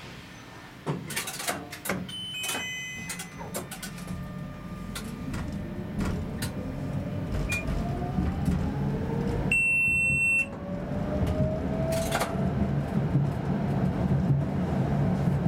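Electric tram pulling away from a stop and accelerating: the traction motors' whine rises in pitch while the rolling rumble grows louder. A few clicks and a short falling run of electronic tones sound in the first few seconds, and a steady one-second beep about ten seconds in.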